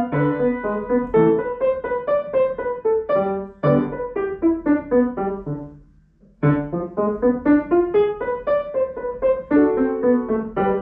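Solo grand piano playing a quick passage of short, separate notes. About six seconds in the playing stops briefly and the notes die away, then it resumes.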